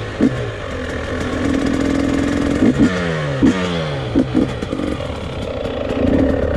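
Dirt bike engine revving, with a few short sharp blips, then winding down in pitch about three seconds in as the rider brakes hard for a stoppie.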